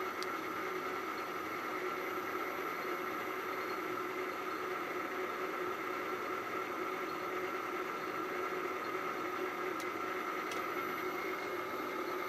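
Hafco Metalmaster AL960B metal lathe running slowly under a variable frequency drive at about 15.6 Hz, the spindle turning at about 70 RPM: a steady hum with a few fixed whining tones over it. There are two faint clicks about ten seconds in.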